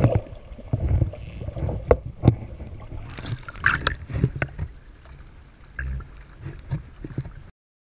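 A dolphin whistle, one thin high rising-and-falling call about a second and a half in. It is heard over irregular water sloshing and splashing against a snorkeler's camera housing as the camera comes up to the sea surface. All sound cuts off suddenly about seven and a half seconds in.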